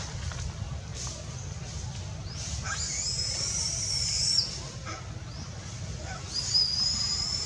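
A mother macaque giving two long, high-pitched crying calls, each about a second and a half long and ending abruptly, pleading for her baby back. The first comes a couple of seconds in and the second near the end.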